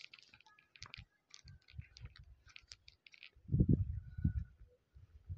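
Footsteps and handling noise of a phone carried while walking across paving: scattered light clicks and soft low thuds, with a louder low rumble about three and a half seconds in.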